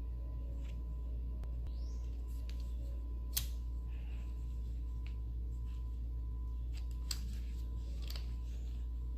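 Sharp metallic clicks of a Milwaukee FASTBACK 6-in-1 folding utility knife being worked, its metal blade and tools snapping open and shut, about half a dozen clicks with the loudest about a third of the way in. A steady low hum runs underneath.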